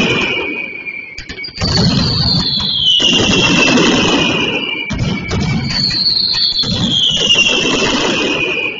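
Mascletà pyrotechnics: shrill whistling fireworks, each whistle falling in pitch over about three seconds, one after another, over a dense crackle and rumble of firecrackers. The noise thins for a moment about a second in, then resumes.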